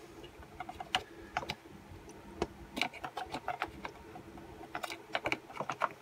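A string of irregular small clicks and knocks of hard plastic parts as the handle of a Stihl BG86 leaf blower is fitted back on by hand over the throttle trigger and stop switch.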